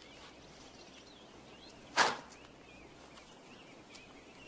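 A single quick whoosh of a martial-arts kick cutting the air about two seconds in, a film sound effect, over faint birds chirping.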